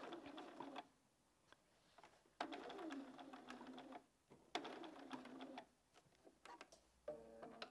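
Bernina 570 QE computerised sewing machine stitching in about four short stop-start bursts, speeding up and slowing down within each, as the binding is eased through under the foot.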